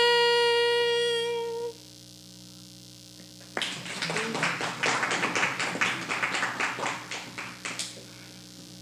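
The song's last held note ends abruptly about two seconds in. After a pause with only a steady background hum, a live audience applauds for about four seconds, starting about three and a half seconds in and dying away near the end.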